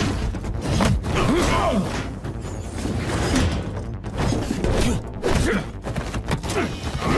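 Cartoon fight sound effects: a rapid run of punches, thuds and body impacts in a hand-to-hand brawl, over dramatic background music.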